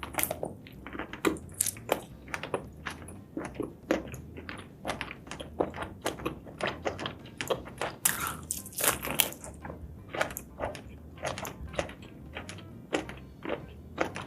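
Close-miked eating of seafood and mushrooms: wet chewing smacks, bites and soft crunches, several a second in an irregular run.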